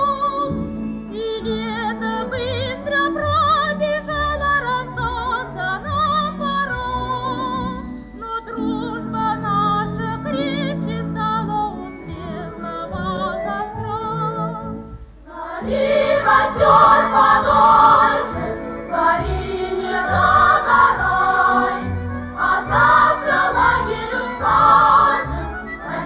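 Soviet pioneer song: singing with vibrato over instrumental accompaniment, growing fuller and louder with more voices, like a choir, from about two-thirds of the way through.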